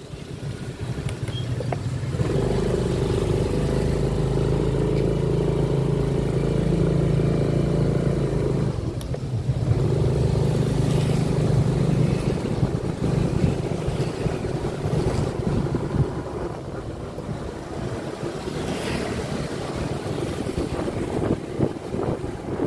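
Motorcycle engine running as it is ridden, a steady hum from about two seconds in, with a brief dip near nine seconds. After about twelve seconds it turns rougher and a little quieter as the bike slows.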